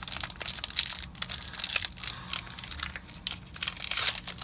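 Foil booster-pack wrapper being torn open and crinkled by hand, a dense run of crackling and tearing.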